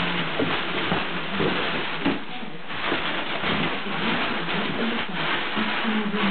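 Crumpled newspaper rustling and crackling without a break as a dog digs and burrows in a cardboard box packed with it.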